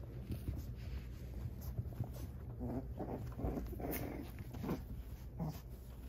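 Young American Bully puppies play-fighting, giving a run of short growls and yips from about two and a half to five and a half seconds in, over a low rumble of handling noise.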